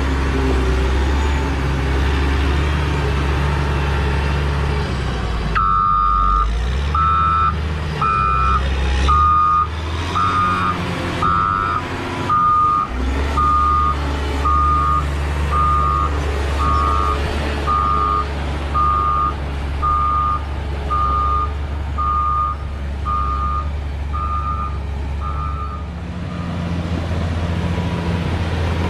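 Caterpillar 120 motor grader's diesel engine running steadily, while its backup alarm beeps about once a second from about six seconds in until near the end, the sign that the grader is in reverse.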